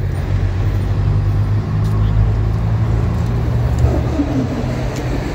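Star 266 army truck's six-cylinder diesel engine running with a low, steady drone as it manoeuvres, with a brief falling tone about four seconds in.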